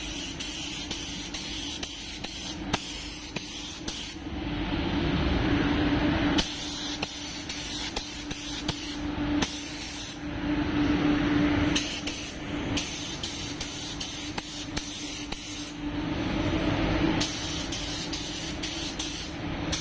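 Gravity-feed paint spray gun hissing as it sprays white base coat in repeated passes of a few seconds, with short breaks when the trigger is released. A steady low hum runs underneath.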